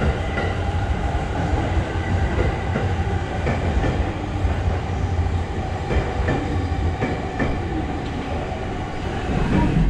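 Orange-and-green-striped JR electric commuter train pulling in alongside the platform: a steady rumble of the cars running past, with a few clicks of wheels over rail joints, easing off slightly towards the end as it slows.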